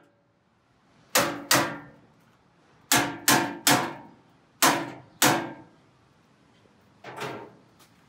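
Hammer tapping on the metal drawer slide of a steel drawer cabinet, knocking a piece of the slide aside to free the drawer. Eight sharp metallic strikes, each ringing briefly, in small groups with pauses between.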